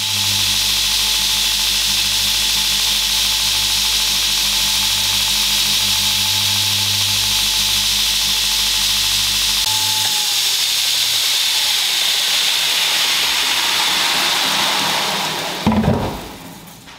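Belt grinder running with a knife blade of truck spring steel held against the abrasive belt on the platen: a loud, steady grinding hiss over the motor's hum. The hum drops out about two-thirds of the way through, and near the end there is a short knock as the sound dies away.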